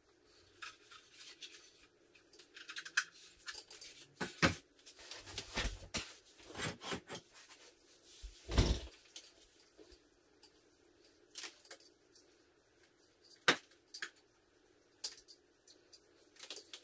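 Irregular knocks, clicks and clatters from hands handling the electronic drum kit's hardware and parts, with the loudest, a low thud, about eight and a half seconds in.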